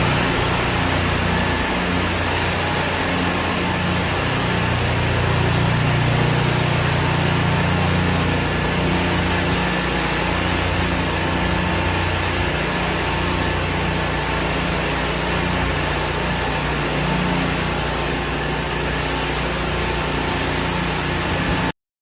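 Two gas-engine pressure washers running steadily, with the hiss of high-pressure water spray on the pavement; the sound cuts off suddenly near the end.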